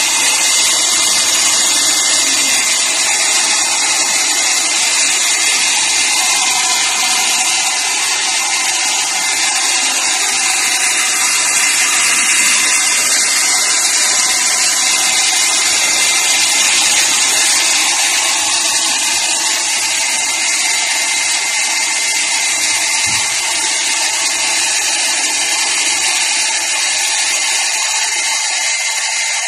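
Small handheld hair dryer running steadily, its fan motor and airflow giving a loud, even whoosh with a thin steady whine.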